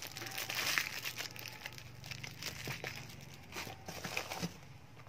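Plastic packaging crinkling as hands handle a bagged item and rummage through bubble wrap in a cardboard box. It is a crackly rustle, loudest in the first second, with another flurry near the end.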